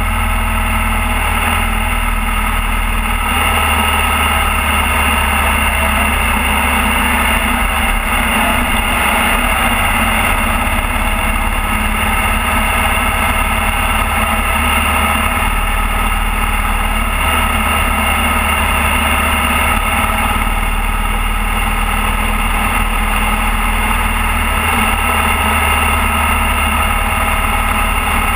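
Motorcycle engine running steadily while cruising at road speed, heard from a camera mounted on the bike behind its windshield.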